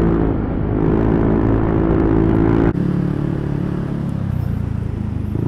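Yamaha NMAX 155 scooter's single-cylinder engine running through an aftermarket JVT exhaust pipe. About two and a half seconds in, the engine note drops abruptly and it runs on at a lower, steadier pitch as the throttle eases off.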